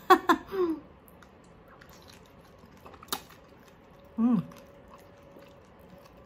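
A person eating crispy roast pork by hand: faint chewing and small mouth clicks, a short voiced exclamation at the start and a hummed 'mmm' falling in pitch about four seconds in, with one sharp click near three seconds.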